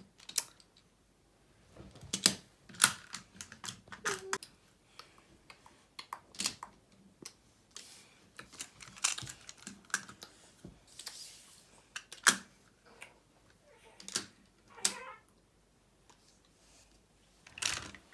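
Plastic magnetic building tiles clicking and clacking as they are snapped together and set down, in irregular scattered clicks.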